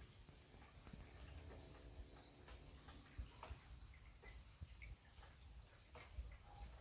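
Near silence: faint forest ambience with a thin, high insect trill that pulses briefly midway, and a few scattered small clicks.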